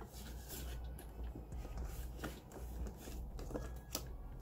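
Polymer banknotes rustling and crinkling as they are handled, with soft clicks and the shuffle of a ring binder's envelope pages.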